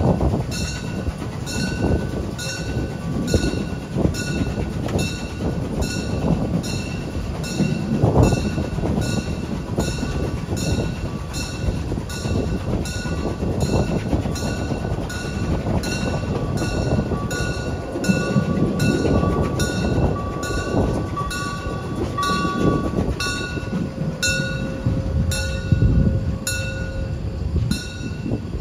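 Narrow-gauge steam train hauled by a Saxon VII K locomotive running, heard from an open-air wagon: a continuous rolling rumble of wheels on rail with a regular beat of about one and a half strokes a second. A thin squeal sounds near the end as the train runs into the station.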